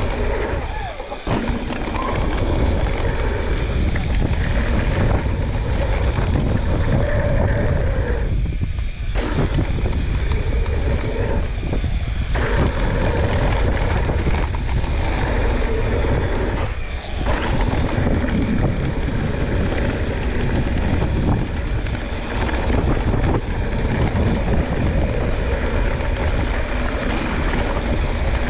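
YT Jeffsy 29 full-suspension mountain bike riding fast down a hardpack dirt trail: steady wind rush over the camera microphone mixed with tyre rumble and bike rattle, with a few brief lulls.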